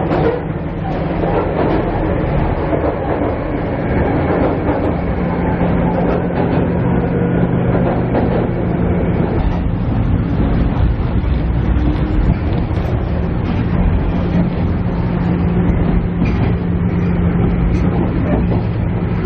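Onboard running sound of a JR East KiHa E130 diesel railcar: the diesel engine's steady drone, a held low hum, under continuous wheel and rail noise, recorded binaurally inside the car.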